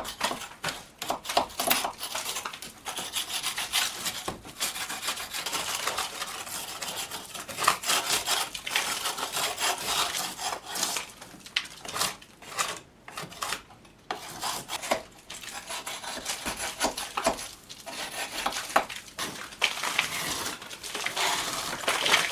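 Sharpened old metal spatula scraping cement residue and wallpaper off a log wall in quick, scratchy strokes, with a short pause about halfway through.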